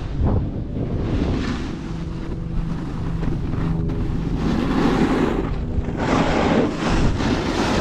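Wind buffeting an action camera's microphone while riding downhill, with the hiss of edges sliding over packed snow that surges in waves, loudest about two-thirds of the way through.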